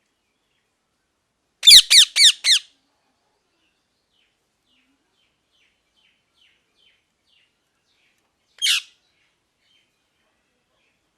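Pet parrot squawking: a quick burst of four loud, harsh squawks about two seconds in, then a string of faint short chirps, and one more single squawk about nine seconds in.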